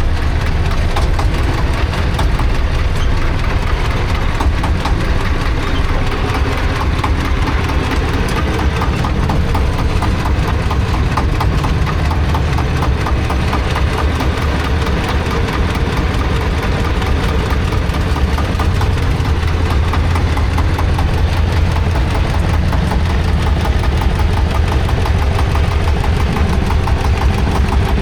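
Diesel engine of the soil-loading machinery running steadily, with a constant low hum and a fast, even pulse from the firing.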